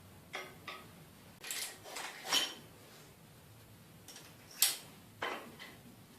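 Light metallic clinks and knocks from bicycle parts and tools being handled, about eight separate strikes spread unevenly across the few seconds, the loudest a little past halfway.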